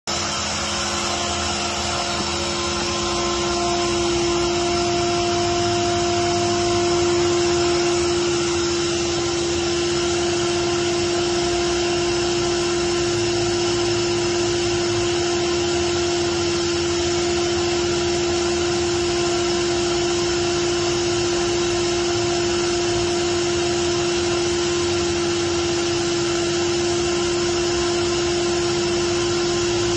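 Ingersoll Rand R37ne Nirvana VSD oil-injected rotary screw air compressor running loaded: a steady whir with a strong steady hum.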